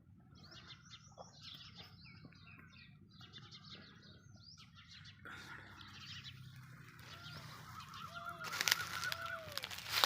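Several birds calling over one another in short honking calls; later, some drawn-out arching calls and a few sharp knocks.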